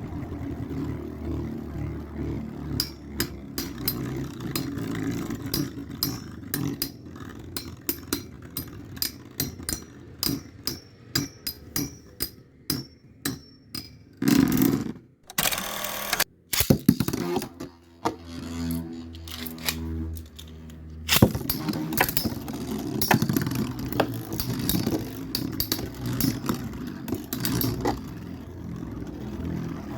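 Two metal Beyblade spinning tops, Storm Pegasis and Earth Aquila, whirring in a plastic stadium with many sharp clacks as they collide, densest in the first half. The sound breaks off near the middle and picks up loud again about two-thirds of the way through.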